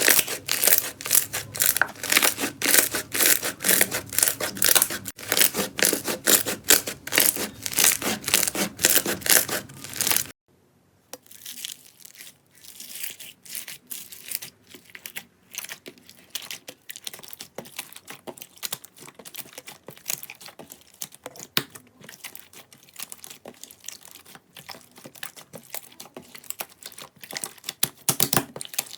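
Slime being squeezed and pressed by hand, giving a dense run of crackling, popping clicks. About ten seconds in it stops briefly, and a quieter, sparser crackling follows.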